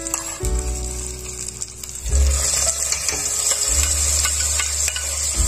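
Hot ghee tadka of fried onions, cumin, red chilli and dried fenugreek sizzling as it is spooned onto cooked daal, with a metal spoon scraping and clicking against the pan.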